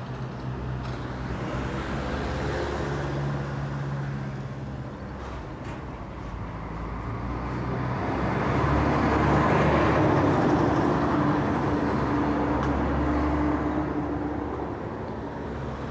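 A motor vehicle running with a low, steady engine hum that swells to its loudest midway and then eases off.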